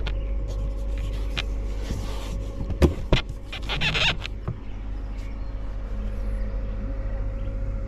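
Two sharp clicks about three seconds in as the console lid over a built-in fridge is unlatched, then a rustling scrape as the lid is lifted open, over a steady low hum.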